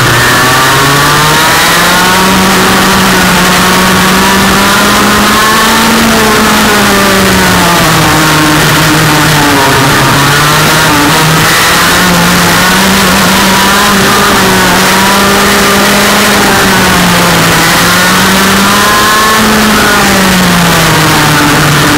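Engine of a Formule 20.000 single-seater race car heard from on board at racing speed, its pitch climbing and dropping again and again as it accelerates and backs off through the corners, over a steady rush of wind and road noise.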